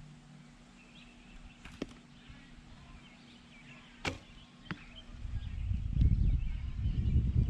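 An arrow shot from a traditional bow: a sharp snap about four seconds in, followed by a second, smaller knock about half a second later. A low rumbling noise builds over the last two seconds.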